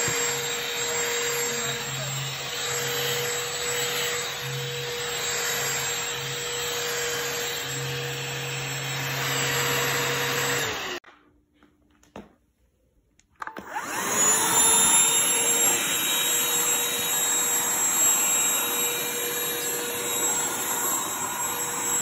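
Shark cordless handheld vacuum running with a steady motor whine, which cuts out about eleven seconds in. After a couple of seconds of near silence it starts again, the whine rising as the motor spins up, then running steadily.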